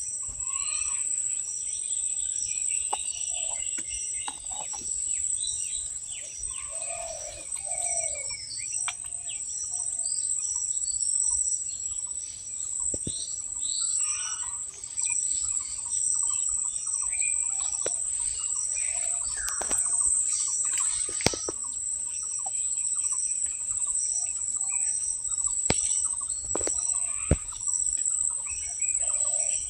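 Birds chirping and calling on and off over a steady, high-pitched insect drone, with a few scattered sharp clicks.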